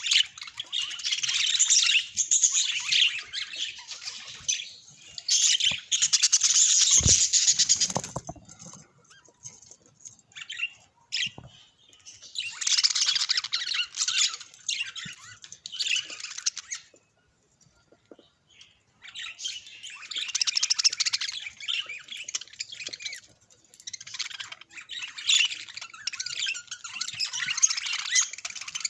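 Budgerigars chattering and chirping in bouts of a few seconds, with sparser chirps in the pauses between bouts. A low thump comes about seven seconds in.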